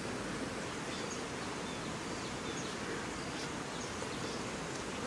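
Steady outdoor background hiss with faint, scattered high chirps.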